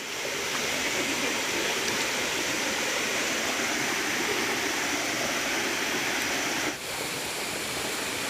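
Waterfall: water falling and cascading over rock tiers in a steady, even rush, dropping briefly in level near the end.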